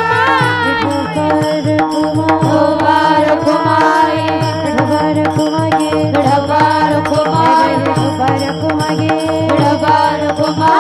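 Marathi Varkari kirtan music: a woman singing a devotional line over a steady stringed drone, with a hand drum keeping a steady beat and sharp metallic clicks of hand cymbals.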